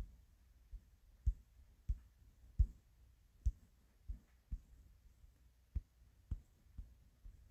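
Irregular soft thumps with faint clicks, about one or two a second: fingers tapping and swiping on a phone's screen close to its microphone.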